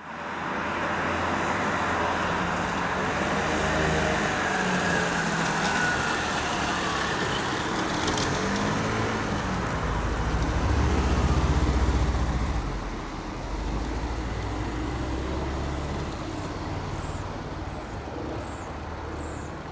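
Road traffic on a city street, with engines rumbling throughout. A car drives past close by about ten seconds in, the loudest moment, and the noise then drops off somewhat.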